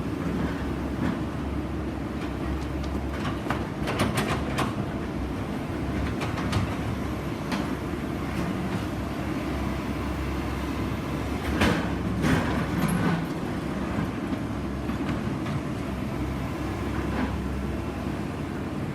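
Soilmec SR-series rotary drilling rig at work: a steady engine rumble with irregular metallic clanks and knocks, the loudest coming about two-thirds of the way through.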